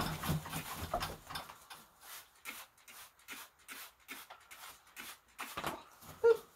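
A hand spray bottle squirting water onto a parrot during its bath, a quick series of short hissing squirts about two to three a second. A short squeak comes near the end.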